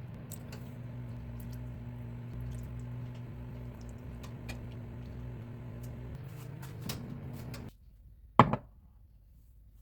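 Microwave oven running with a steady mains hum and faint crackles, then switching off abruptly; a sharp click follows a moment later.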